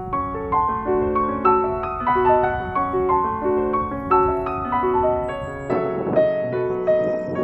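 Background piano music: a gentle melody of single struck notes in a repeating pattern, about two notes a second.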